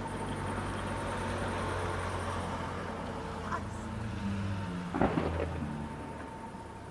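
Crowd ambience with a steady low hum. One sharp bang about five seconds in.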